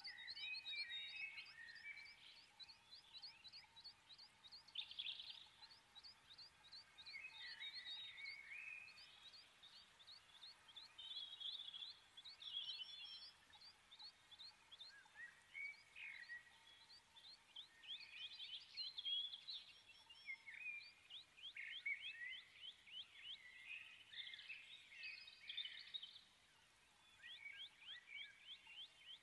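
Faint birdsong: rapid high trills and short chirps, sung in phrases with brief pauses between them.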